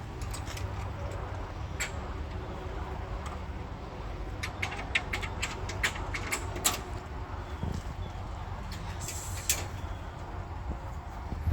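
Sharp clicks and knocks of scrap metal being handled, a quick run of them in the middle, over a steady low rumble.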